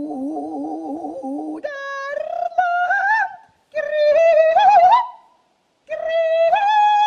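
Unaccompanied voice singing without words. A low line wavers in pitch, then about a second and a half in the voice jumps high for three phrases with upward slides, each cut off by a short breath-like gap.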